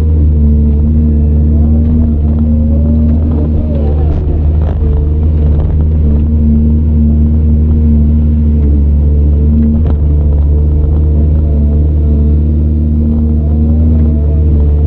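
Caterpillar 395 excavator's C18 diesel engine running steadily under working load, heard from inside the operator's cab, with a few light knocks over the steady low engine tone.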